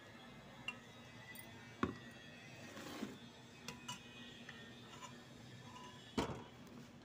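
A steel ladle and steel serving dishes knocking and scraping as curry is served, with a few scattered sharp clinks. The two loudest clinks come about two seconds in and about six seconds in, the second ringing briefly.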